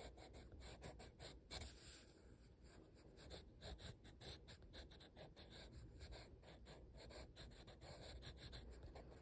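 Faint scratching of an orange colored pencil on sketchbook paper, in a run of short, irregular strokes as it traces curved outlines.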